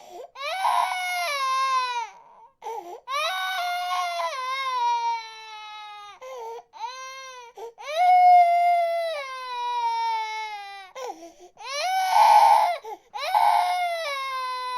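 Baby crying in a series of long wails, each one sliding slowly down in pitch, with brief breaths between them.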